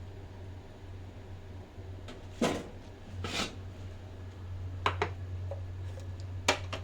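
Kitchenware being handled: two short rasping sounds, then a few sharp clicks and knocks in pairs, over a steady low hum.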